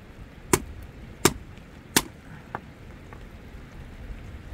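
Hand-held stone knocked sharply against hard stone, three strong knocks about 0.7 s apart, then one faint knock, after which the knocking stops.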